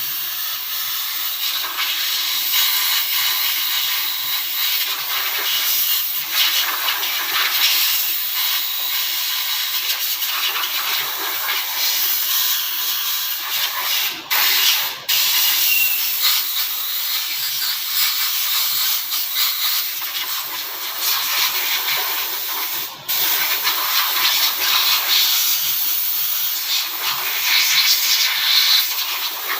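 A loud, steady hiss, strongest in the high range, with only a few momentary breaks.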